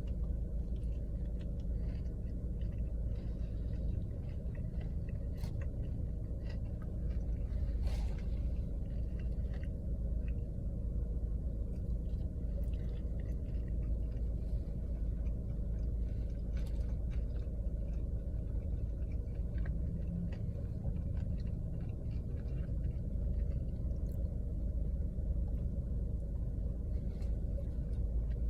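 Close-up chewing and small wet mouth sounds of someone eating a buffalo chicken slider and fries with ranch, with scattered faint clicks, over a steady low rumble.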